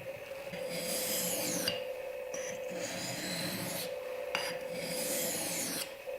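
Steel knife blade being sharpened on a sharpening stone: several long rasping strokes of about a second each.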